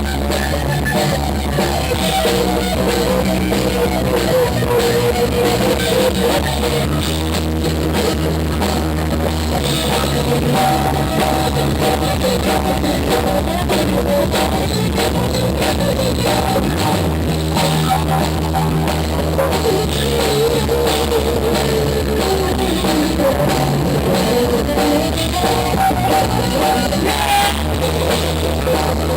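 A band playing rock music: drum kit and bass under guitar, with a wavering melodic lead line.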